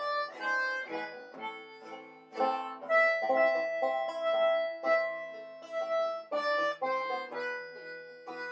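Instrumental music with a bright melody of stacked, sustained notes over plucked string accompaniment, like a harmonica or accordion with banjo.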